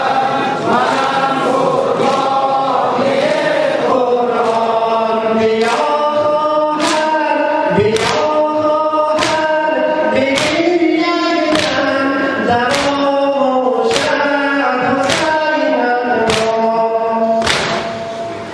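A crowd of men chanting a mourning lament in unison while beating their chests in sineh zani. From about four seconds in, a sharp strike lands a little over once a second in time with the chant.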